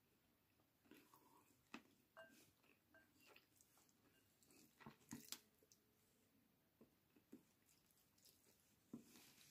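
Faint sounds of a person eating rice by hand: soft chewing with a few scattered mouth clicks and smacks.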